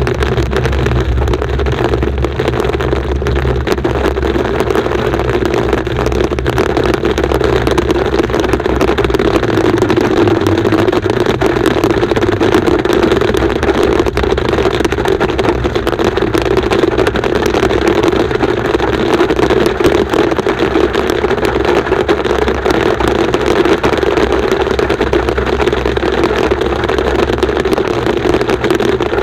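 Hail pelting the car's roof and windshield, a dense, steady clatter of small impacts, over the rumble of the car driving, heard inside the cabin.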